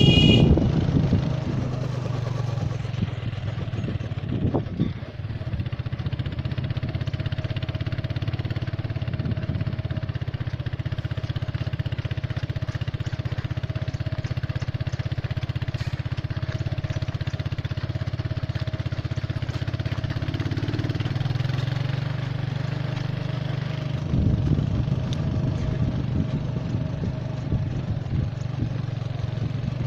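Engine of a slow-moving vehicle running steadily: a low, even drone with a steady hum, its note changing about 24 seconds in.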